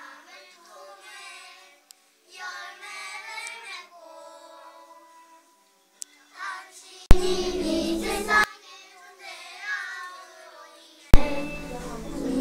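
A group of preschool children singing a graduation song together. The sound abruptly becomes much louder and fuller twice, for about a second each time, about seven and eleven seconds in.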